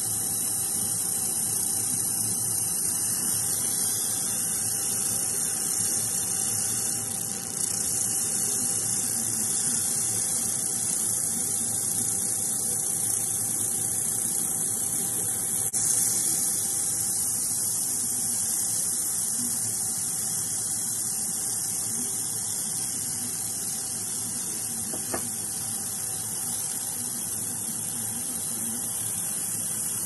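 50W fiber laser engraving a metal belt buckle: a steady high hiss and buzz as the beam ablates the metal and throws sparks, with a faint steady hum beneath.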